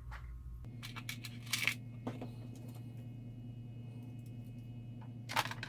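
A few light clicks and knocks of a clear plastic parts tray and loose screws being handled and set down on a workbench, the loudest about a second and a half in and another near the end.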